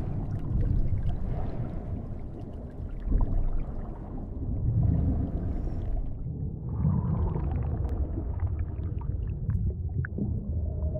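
Underwater ambience: a low rumbling wash that swells and eases every few seconds, with faint scattered clicks and bubbling.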